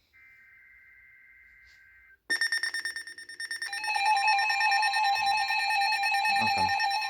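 Emergency Alert System signal: a short, buzzy SAME header data burst, then about two seconds in the loud EAS attention tone starts suddenly. It pulses briefly, then holds as a steady two-tone alarm.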